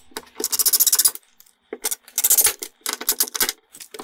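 Cordless impact driver hammering in four short bursts of about half a second to a second each, a fast metallic rattle, driving a long bit up through a ceiling hole.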